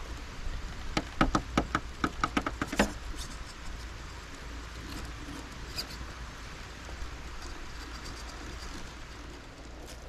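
Redcat Ascent Fusion RC crawler clattering over stones: a quick run of about a dozen sharp knocks in two seconds, then only a few faint ticks over a steady low rumble.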